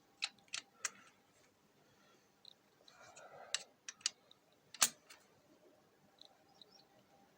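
Metal hand tools clinking and knocking on the engine: a scattered handful of sharp metallic clicks, the loudest a little under five seconds in.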